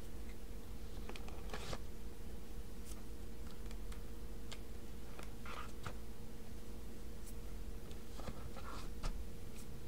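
Trading cards being slid by hand into rows of cards in a plastic storage box: scattered soft taps and short rustles, the busiest about two seconds in, in the middle and near the end, over a steady low hum.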